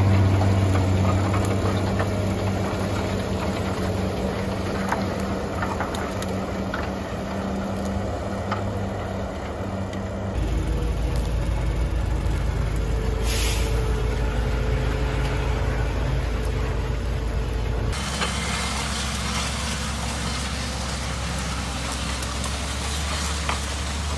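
Tractor engine, the Fendt 936, running steadily under load while it pulls a ten-furrow reversible plough through the soil. The engine note changes abruptly twice, about ten and eighteen seconds in, and there is a brief hiss in the middle.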